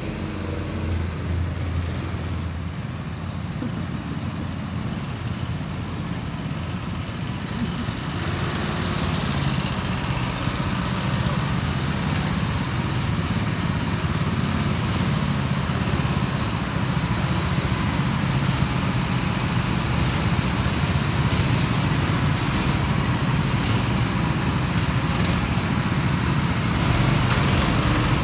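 Several small go-kart engines running together, a steady hum that grows louder as the karts come into the pit lane.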